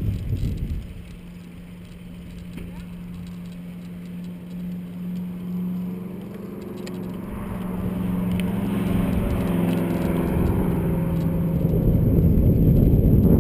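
Wind rushing over the microphone of a camera on a bicycle coasting downhill. It drops away after the first second, then builds again toward the end as the bike gathers speed. A steady low hum runs through the middle.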